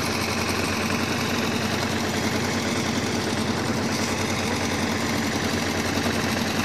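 An engine running steadily at an even speed, with a fast, even beat and a low hum.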